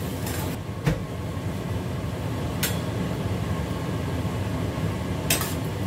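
Chopped aromatics frying in bubbling oil in a stainless steel wok over a gas burner, a steady sizzle. A metal spatula clinks against the wok a few times.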